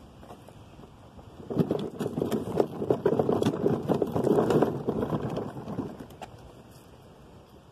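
Hard plastic wheels of a toddler's push car rattling and crunching over rough concrete, louder for about four seconds from a second and a half in, then quieter.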